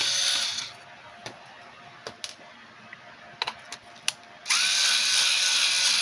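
Electric screwdriver backing out graphics-card backplate screws. It runs briefly at the start, then stops for a few light clicks, and starts again with a rising whine about four and a half seconds in, running on steadily.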